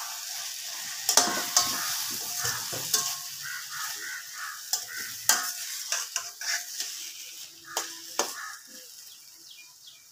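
Grated raw mango sautéing in hot oil in a stainless-steel kadai, sizzling while a steel spatula stirs and scrapes it, with sharp taps of metal on the pan. The taps are densest in the first few seconds and the sizzle fades toward the end.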